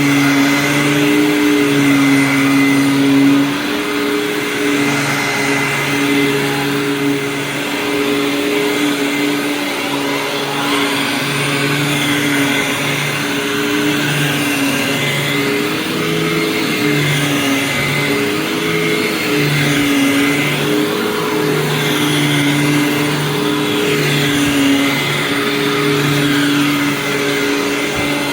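2002 Hoover WindTunnel Supreme upright vacuum cleaner running with a steady motor hum. Its pitch wavers and dips now and then, mostly around the middle.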